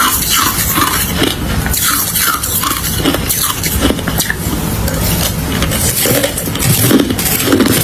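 Close-miked crunching of ice being chewed: dense, continuous crackling and snapping.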